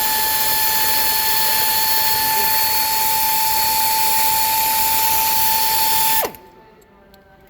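A power tool running steadily at high speed, a hissing noise with a high, held whine, that cuts off about six seconds in, its pitch dropping as it spins down; a few light clicks follow.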